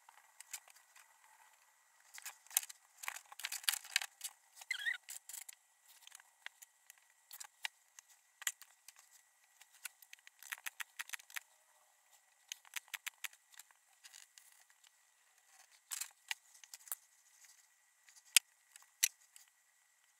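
Faint, irregular small clicks and taps of hands handling a lithium cell pack, its wires and connectors, with a louder click near the end.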